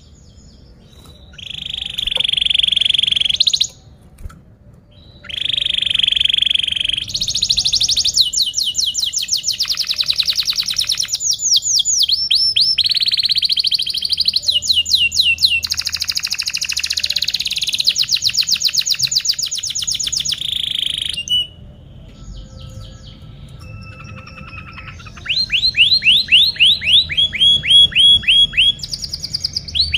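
Domestic canary singing a long song of fast trills, with rapid runs of repeated chirps and buzzy rolls. There are short breaks near the start and around four seconds in, and a softer, sparser stretch from about twenty-one seconds before loud trilling resumes.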